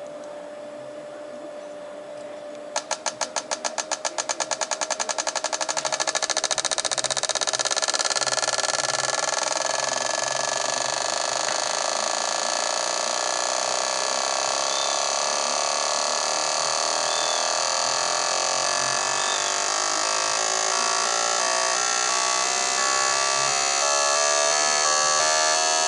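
Fuel injectors on an injector cleaning and test bench running its automatic test cycle: after a steady hum, the injectors start clicking about three seconds in, the clicks speeding up until they merge into a continuous buzz that carries on to the end.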